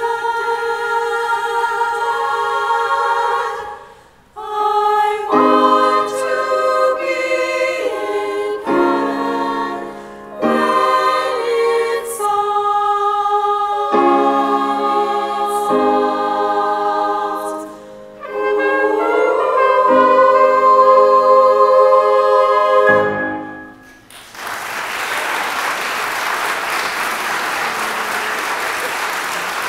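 Women's choir singing in several parts, phrase by phrase, closing on a long held chord that is cut off about four-fifths of the way through. Applause from the congregation follows, steady to the end.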